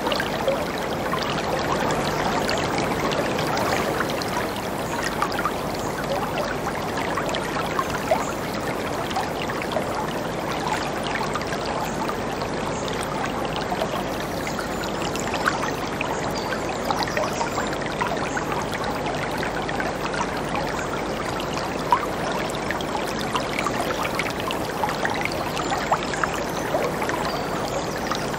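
Whitewater river rapids rushing steadily over rocks, a constant roar of water with small splashes scattered through it.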